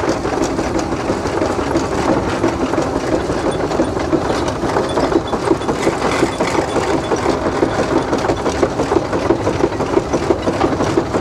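Steam traction engine running as it drives along, its exposed spur gearing turning, with a quick, even rhythm of strokes that holds steady throughout.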